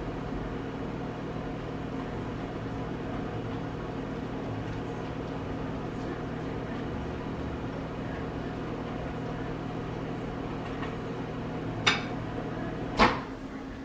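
Microwave oven running with a steady hum, heating a tortilla. Two sharp knocks come near the end, about a second apart, the second louder.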